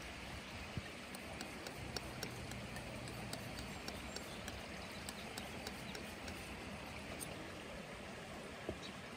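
Palette knife mixing and scraping thick paint on a palette, with small irregular clicks of the blade against the palette surface over steady outdoor background noise.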